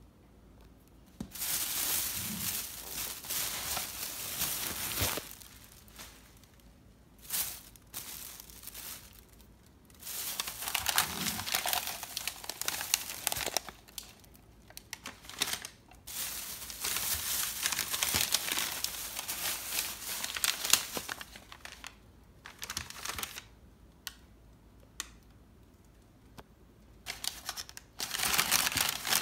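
Crumpled packing paper crinkling and rustling as hands unwrap items, in several bursts of a few seconds each with short pauses between.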